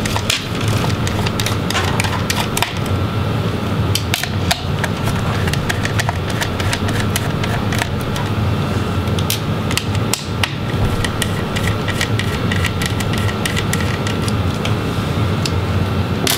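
Scattered light clicks and taps of a small Phillips screwdriver and tiny screws being worked out of a laptop's plastic and metal chassis and handled, over a steady low hum.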